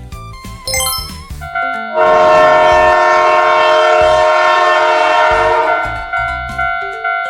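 Train horn blowing for about four seconds, a loud chord of several tones over a rushing noise, fading out near the end. It is the passing sound effect of a cartoon train, over children's background music.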